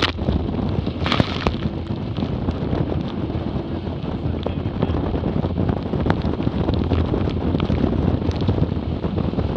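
Strong wind buffeting the microphone aboard a Hobie 20 catamaran sailing fast, over the steady rush of water past the hulls. Spray splashes against the camera at the start and again about a second in.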